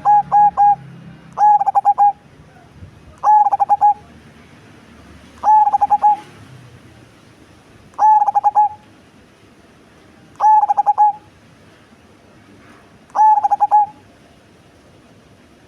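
Cemani zebra dove (perkutut) cooing: it finishes a quick run of staccato notes at the start, then sings six short phrases of four or five fast notes, one about every two to two and a half seconds. The voice is big and deep.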